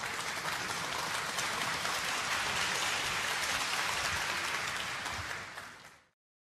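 Audience applauding at a snooker match, fading out near the end and then cut off.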